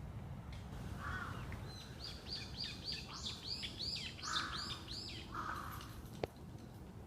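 A bird calling a rapid series of high arching chirps, about three a second, with three short, harsher calls lower in pitch among them. A single sharp click sounds near the end.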